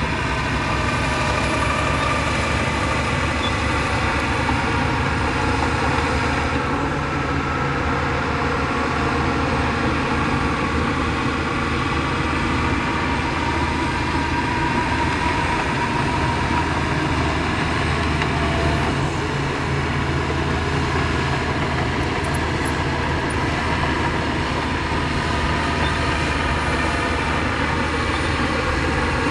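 Heavy diesel engine of earthmoving machinery running steadily under load, a deep even drone with no revving or sudden knocks.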